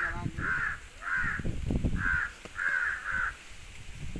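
A crow cawing repeatedly: about six short, harsh caws at uneven intervals, over a low rumbling noise that is loudest about halfway through.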